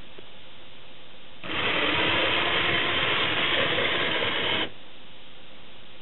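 Vintage LEGO Technic bulldozer's 4.5-volt motor running, whirring through its plastic gears, chain and tracks for about three seconds. It starts suddenly and cuts off just as suddenly.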